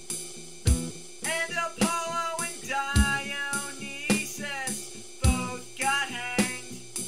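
Lo-fi folk punk band recording: a drum kit keeps a steady beat under a wavering melody line that comes in two phrases.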